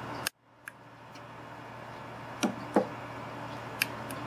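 Tactile pushbuttons on an Arduino breadboard being pressed, giving a handful of small, sharp clicks, two of them with a duller tap, over a steady low hum.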